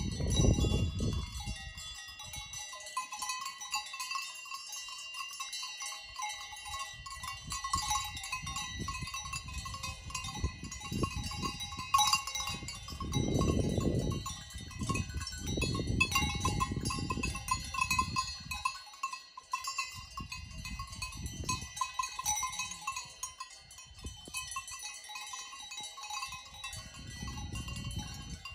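Livestock bells clanking and ringing without a break as the animals graze, with a low rumble that comes and goes.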